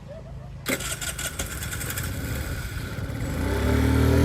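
Motorcycle engine being started on its electric starter, powered by a freshly fitted 12 V LiFePO4 lithium battery. A click, then the starter cranks for about two and a half seconds before the engine catches and runs, getting louder with its pitch rising at first.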